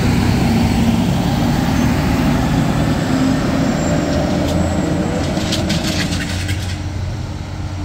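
Garbage truck's engine rumbling as the truck drives past close by and pulls away, the rumble easing off toward the end, with a short run of metallic rattles past the middle.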